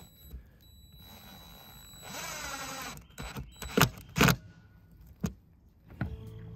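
Cordless impact driver running for about a second, driving a screw through a solar cable entry plate into the RV roof, followed by two loud sharp clicks and a softer one.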